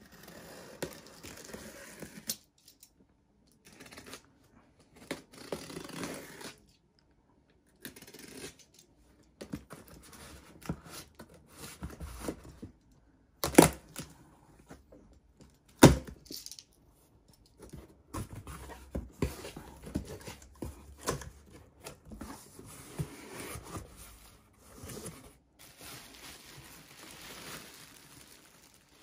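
A stiff steerhide leather jacket being handled, the hide rustling and creaking in short spells with pauses between. About halfway through come two sharp clicks a couple of seconds apart.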